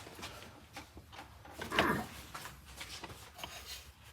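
Light clicks and knocks of metal transmission parts being handled and worked loose, with one louder, rougher sound about two seconds in.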